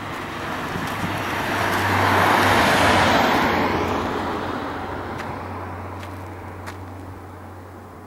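A car passing by on the road: tyre and engine noise building to its loudest about two and a half seconds in, then fading away.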